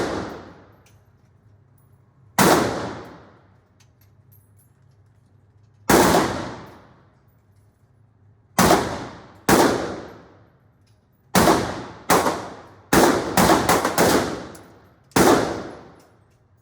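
Gunshots from a firearm at a shooting range: single shots a few seconds apart, then a quick string of five or six about two thirds of the way through. About a dozen in all, each echoing for about a second.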